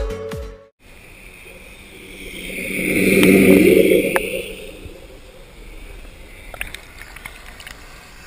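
Radio-controlled model vehicle passing close, its electric motor and running noise swelling to a peak about three seconds in and then fading to a lower steady level, with a few light clicks near the end.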